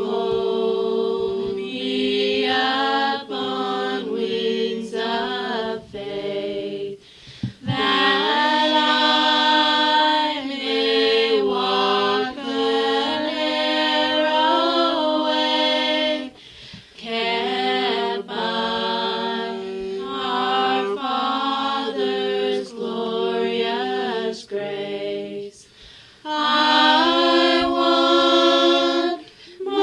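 A cappella vocal group singing a gospel hymn in harmony, in long held phrases with brief pauses between them.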